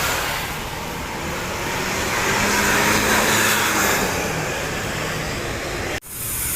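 Road traffic noise of a passing vehicle, running steadily, with a faint held tone in the middle. The sound drops out abruptly for a moment near the end.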